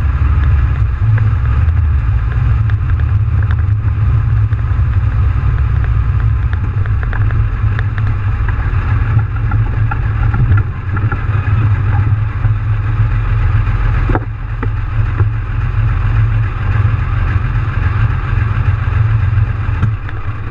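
V12 diesel engine of a Soviet AT-S artillery tractor running steadily, heard from inside the cab, with a heavy low drone.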